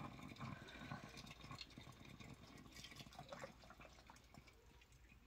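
Faint trickle of hot coffee poured from a percolator's spout into a milk-glass mug, the stream slowly fading.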